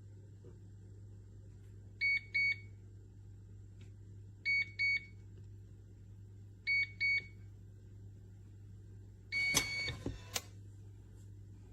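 Electronic keypad beeps from a HOLEWOR biometric pistol safe: three quick double beeps a couple of seconds apart, then a final beep with a rattling clatter of the latch and lid about nine seconds in.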